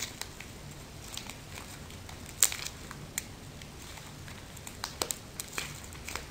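Clear glitter slime made from Elmer's glue being squeezed and stretched between the hands, giving scattered sticky clicks and crackles, with one sharper pop about two and a half seconds in.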